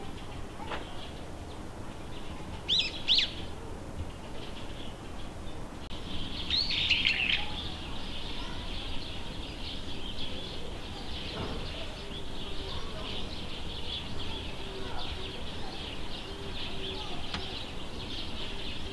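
Birds chirping in a continuous high twitter, with two louder, sharper calls about three seconds and seven seconds in.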